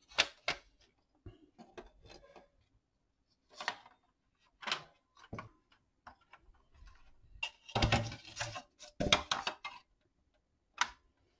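Plastic housing pieces of a 2003 Chevrolet pickup instrument cluster handled and fitted back together: scattered short plastic clicks and knocks, with a louder run of knocks about two-thirds of the way through.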